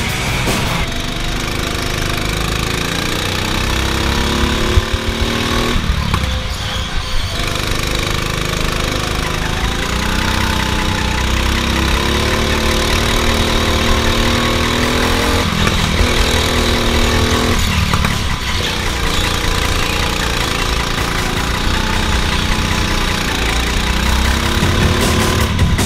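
Go-kart motor heard from onboard as the kart laps, its pitch climbing under acceleration and falling away several times, about six seconds in and twice more past the middle.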